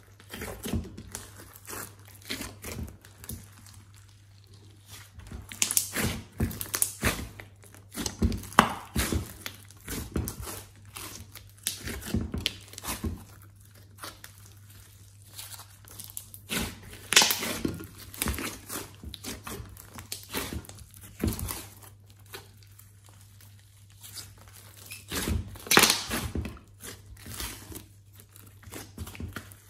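Glossy slime with clay mixed in being kneaded, squeezed and folded by hand, making irregular wet squishing and crackling pops as trapped air bursts. The sound comes in clusters, with quieter stretches between.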